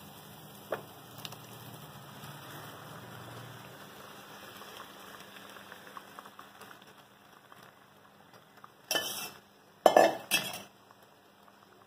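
Boiled chickpeas tipped from a steel bowl into a pan of fried masala and scraped in with a wooden spatula over a faint sizzle. Near the end come a few loud clanks of metal cookware, about a second apart.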